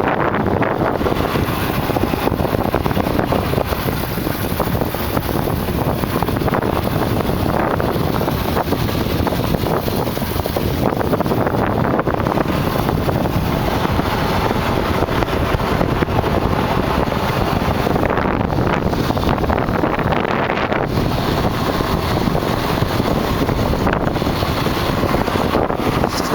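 Steady wind rush on the microphone and rolling noise from a Kawasaki KLX dirt bike coasting with its engine switched off.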